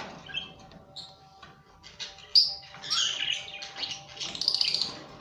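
Caged pet birds chirping, busy overlapping high calls that grow louder and denser about halfway through, after a sharp click at the start.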